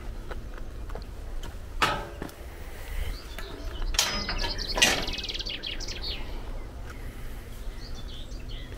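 Galvanised steel field gate handled and swung, clanking with three sharp metallic clangs about two, four and five seconds in, the later ones ringing briefly. Small birds chirp faintly in the background.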